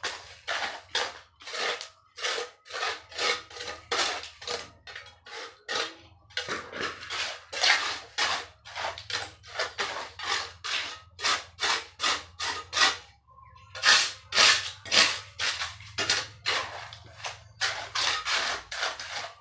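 Mason's trowel scraping and spreading wet cement mortar over a concrete floor, in quick repeated strokes about two to three a second, with a brief pause a little past the middle.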